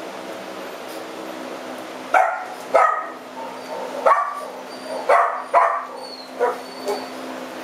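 A dog barking in a run of short, sharp barks starting about two seconds in, about five loud ones and two softer near the end, over a steady low hum.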